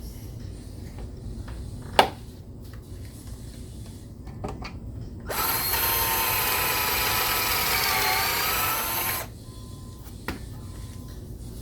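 Power drill boring a pocket hole into a pine board for about four seconds, its pitch dipping briefly as the bit bites in. A sharp click comes about two seconds in, before the drilling.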